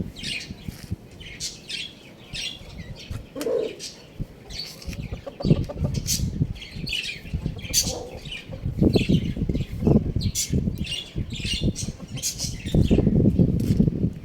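Small birds chirping, many short high calls in quick succession, over bursts of low rustling noise.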